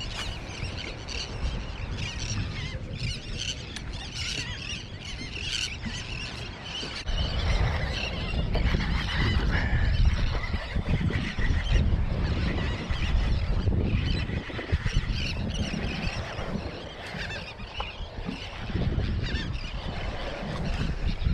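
Birds calling repeatedly over a steady low rumble that grows louder about seven seconds in.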